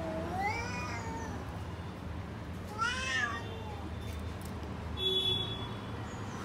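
Domestic cat meowing: a long meow that rises and falls in the first second or so, then a shorter, higher meow about three seconds in. A brief high-pitched sound follows about five seconds in.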